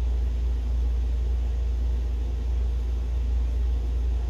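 A steady low background hum with a deep rumble underneath.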